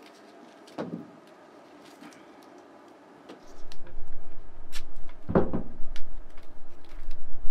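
Duct tape being pulled off the roll in short crackling rips, about a second in and again more loudly past halfway. From about halfway a loud, gusty low rumble of wind buffeting the microphone covers everything and is the loudest sound.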